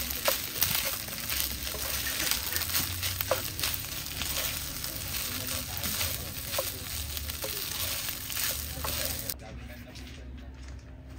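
Food sizzling in a hot pan: a dense, steady crackle with a few light taps. It cuts off abruptly about nine seconds in.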